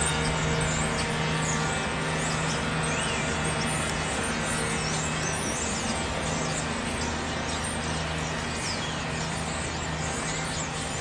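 Steady city traffic hum with a low droning engine tone, and small birds chirping in many short high calls.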